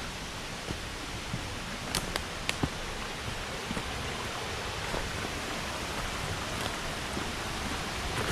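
Steady rush of a mountain stream's flowing water, with a few short sharp clicks about two seconds in.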